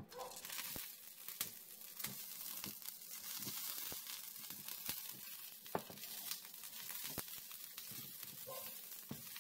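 Whole jalapeño peppers sizzling in oil on a hot nonstick electric griddle: a steady hiss with frequent small crackles and pops. The sizzle starts suddenly as the first pepper touches the surface.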